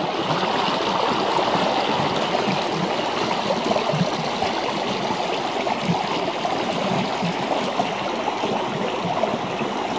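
Shallow mountain river running over stones: a steady burble of water.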